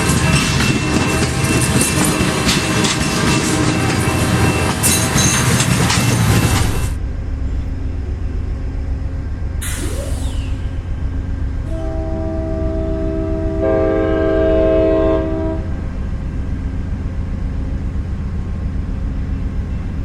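A passenger train passes at speed, its Nathan Airchime horn sounding a multi-note chord over loud wheel and rail noise that drops away about seven seconds in. A brief rushing noise follows. The horn chord then sounds again more distantly, swelling for a couple of seconds over a low rumble.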